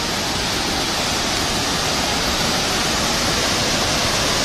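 Steady rush of a waterfall pouring down rock steps into a pool.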